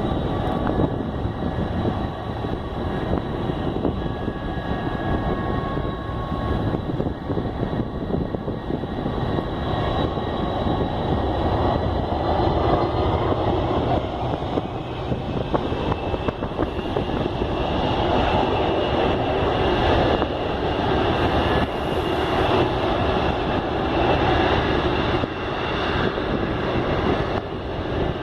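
GE CF6-50 turbofan engines of a DC-10-30 running: a steady rush of engine noise with several high fan whines that drift slowly in pitch. It grows louder from about halfway through.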